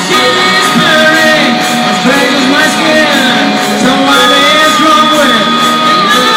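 Rock music with a singing voice and guitar, loud and continuous.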